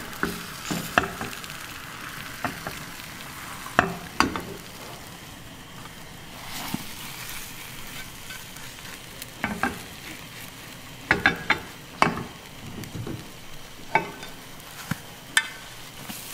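Rolled egg omelette gently sizzling in a rectangular egg roll pan, with sharp clicks and taps of chopsticks against the pan as the omelette is turned and rolled, several coming in quick clusters.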